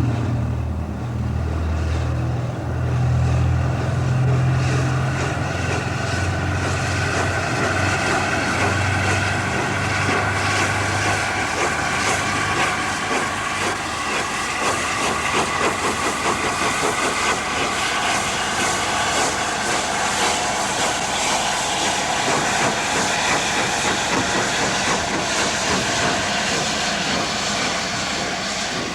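Gresley A4 Pacific steam locomotive running under steam: a deep rumble for about the first ten seconds, then a fast, even run of exhaust beats over a steady hiss of steam.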